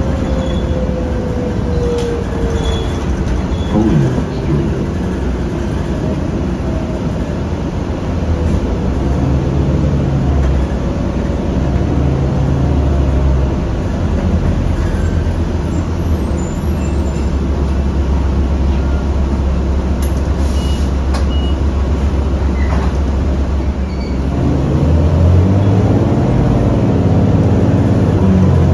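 2008 New Flyer D40LF diesel transit bus heard from inside, its engine and drivetrain running steadily as it travels. A whine falls in pitch over the first few seconds, and the engine grows louder near the end.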